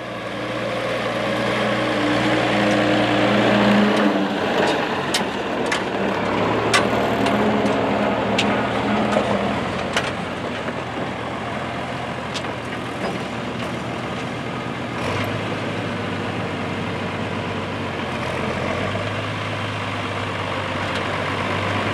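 International Harvester farm tractor engine running steadily as it pulls a loaded silage dump trailer, with a string of sharp clanks and clicks over several seconds in the middle.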